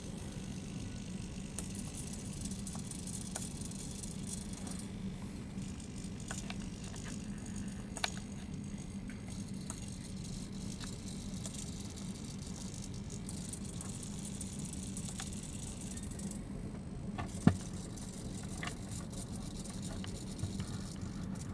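Small hobby servos in a 3D-printed T-35 model tank whirring in short spells as the turrets and guns swivel through a scripted Pololu Maestro sequence. There are scattered light clicks, and a sharper click about 17 seconds in is the loudest sound.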